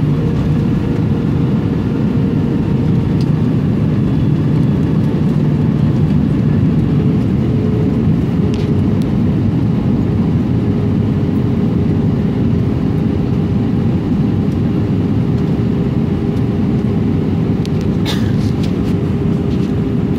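Cabin noise inside an Airbus A320 descending on approach with flaps extended: a loud, steady roar of airflow and engines with a steady hum. A few light clicks about 18 seconds in.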